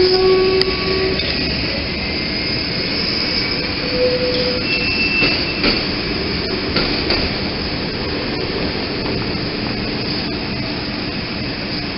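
SEPTA Kawasaki K-car light-rail trolley rolling past on street track, with short high wheel squeals as it takes the curve. A horn note fades out about a second in.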